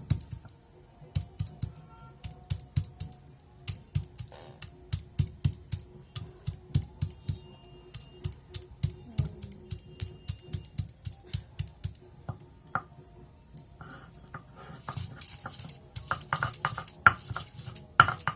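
Garlic being ground by hand with a stone, which knocks about twice a second. Near the end it gives way to a quicker, denser clatter and scraping.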